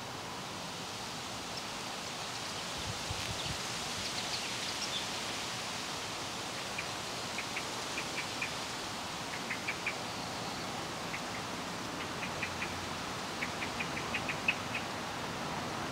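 Birds chirping in a garden: short runs of two to five quick high notes repeating through the second half, with fainter higher twittering a few seconds in, over a steady rustling hiss.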